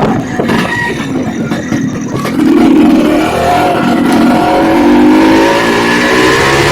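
Two-stroke engine of a Suzuki Samurai motorcycle revving under way. It is softer for about the first two seconds, then louder, with its pitch climbing as the throttle opens.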